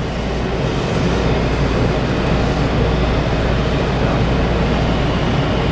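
Washington Metro 2000-series railcar running, heard from inside the car: a steady rumble and hiss that grows a little louder in the first second.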